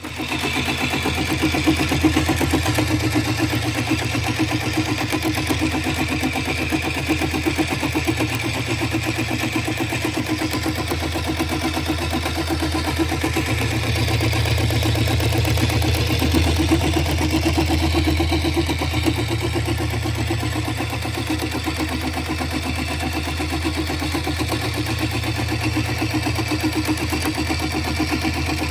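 Dematron CNC programmable sewing machine stitching a grid pattern into nylon webbing: the needle runs fast and steadily over the motor's hum, starting suddenly. The low hum steps up and down every few seconds as the machine works through the pattern.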